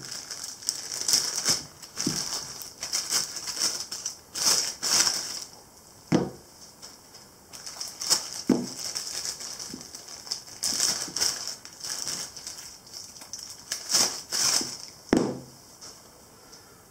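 Clear plastic bags crinkling as steel quick-change tool holders are unwrapped. Three dull knocks come as the heavy holders are set down on a table mat, about six, eight and a half and fifteen seconds in.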